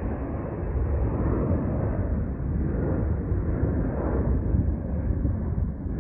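Jet airliner climbing out after takeoff, its engines making a deep rumble that swells and fades slightly.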